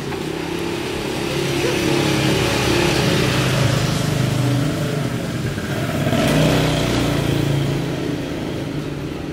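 Motor vehicle engines passing close by on a street. The engine noise swells to a peak about three to four seconds in, eases off, and swells again about six and a half seconds in.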